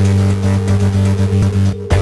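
Electronic background music with a heavy, steady bass. It briefly thins out to the bass alone shortly before the end, then comes back in full.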